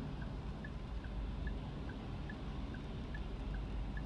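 Car's turn-signal indicator ticking in the cabin, about two and a half ticks a second with alternate ticks slightly different in pitch, over the low steady rumble of the car sitting at a standstill.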